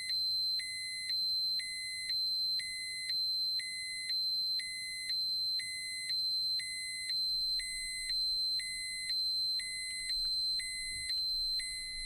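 Electronic radiation dosimeter alarm: a steady high-pitched tone with a lower beep pulsing on and off about once a second. This is the warning that a dose or dose-rate limit has been exceeded.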